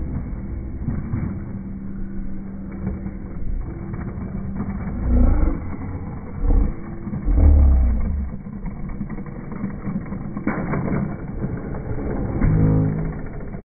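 Road traffic rumbling steadily, with a few heavy low thumps on the phone microphone about five and seven seconds in.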